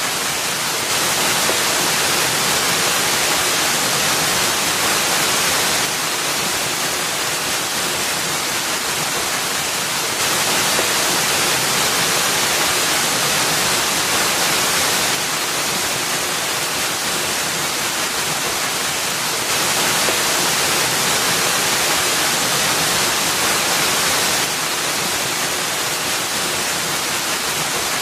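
Waterfall rushing, water falling over a rock ledge into a pool as a steady dense hiss strongest in the treble. Its loudness steps slightly up and down every five seconds or so.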